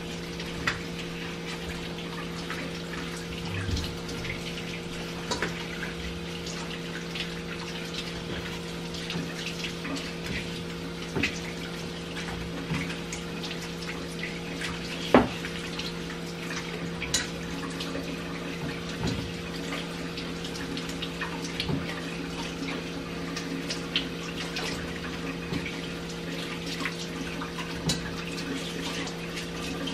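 Kitchen tap running steadily while peeled yam is rinsed under it, with a steady low hum beneath and scattered light knocks as pieces are handled and set in the pot, one sharper knock about halfway through.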